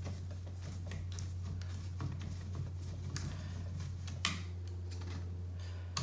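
Small clicks and taps of parts being handled and fitted on a radio-controlled truck chassis, the sharpest a little after four seconds in, over a steady low hum.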